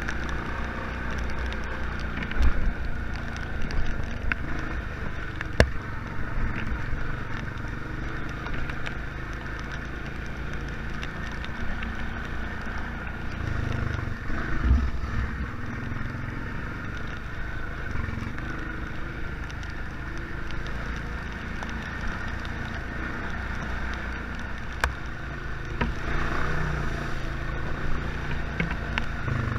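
Honda Fourtrax ATV's single-cylinder engine running under way, with its pitch and level rising briefly about halfway through and again near the end, and a few sharp knocks.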